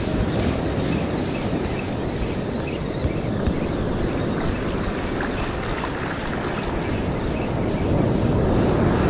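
Ocean surf with wind on the microphone: a steady, dense rush of noise that swells louder near the end.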